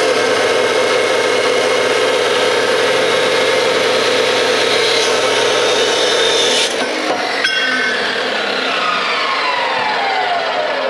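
DeWalt abrasive chop saw cutting through steel stock with a loud, steady grinding whine. A little under seven seconds in, the cut ends. A moment later the motor is switched off with a click, and its whine falls steadily as the blade spins down.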